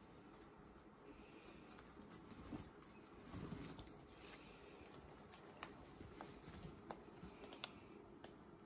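Guinea pigs chewing lettuce and carrot and shuffling in hay, faint, with scattered small crunches and clicks, more of them in the second half.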